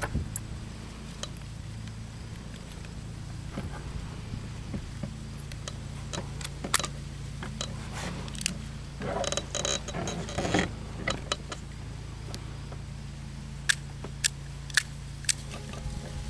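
Armscor Model 200 .38 Special revolver being handled: small metallic clicks and rattles, then four sharp clicks near the end. The cylinder is not quite locked up.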